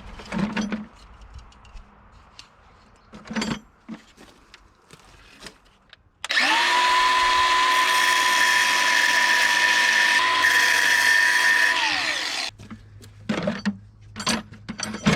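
Grinder spinning up with a rising whine about six seconds in, running steadily for about six seconds while slicing the crimp on an air-spring supply hose fitting, then winding down. Before it, scattered clicks and knocks of handling tools and parts.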